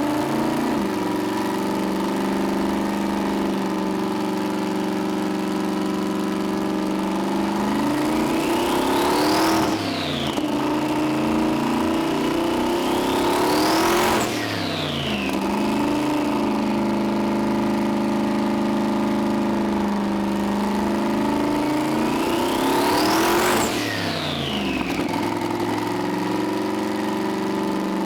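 Twin-turbo LS V8 idling, revved three times, with a high turbo whistle rising in pitch on each rev and falling away as the revs drop back.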